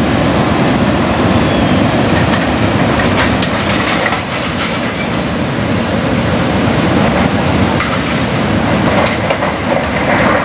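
Swollen floodwater rushing past: a loud, steady, dense noise of turbulent water with faint knocks in it.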